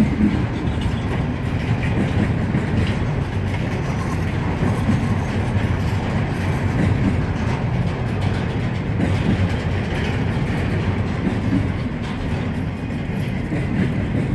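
Double-stack container well cars rolling past, a steady rumble of steel wheels on the rails.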